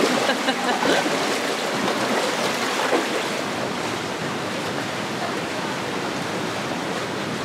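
Steady rush of shallow stream water flowing over rocks and boulders.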